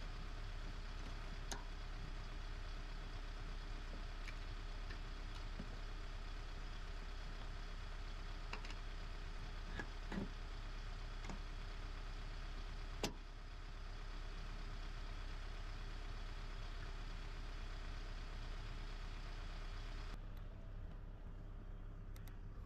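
Steady engine-like idling hum, with scattered light clicks and knocks as the camper's cover fastenings are handled, the sharpest about 13 s in. Near the end the hum loses its high end.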